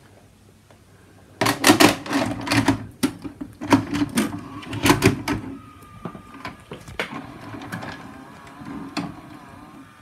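A VHS cassette being pushed into a VCR: a run of loud plastic clacks and clunks as it goes in and the loading mechanism takes it, then from about halfway a steady motor whirr with lighter clicks as the machine threads the tape.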